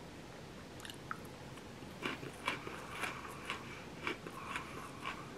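Faint crunching of a person biting into and chewing a salted-caramel-coated pretzel, starting about two seconds in and going at about two crunches a second.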